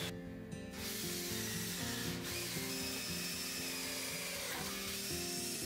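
Background music: a steady tune whose low notes change several times a second.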